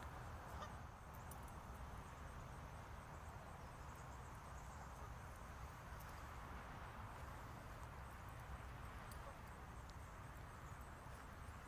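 Faint, steady outdoor background noise: a low, unsteady rumble under a soft hiss, with a few faint ticks and no distinct event.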